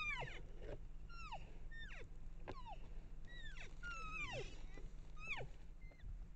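A pack of coyotes yipping and howling, with many short, high calls that slide steeply down in pitch, several voices overlapping, about one or two a second.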